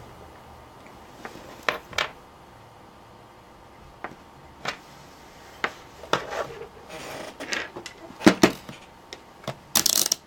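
Scattered clicks, knocks and rubbing of small objects being handled and set down on a work surface, with a louder cluster of knocks near the end.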